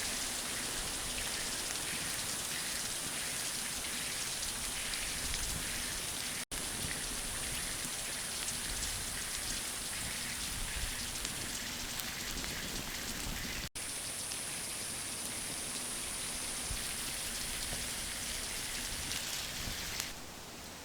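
A steady, dense hiss with fine crackle, like rain or fat sizzling. It cuts out for an instant twice and falls away about a second before the end.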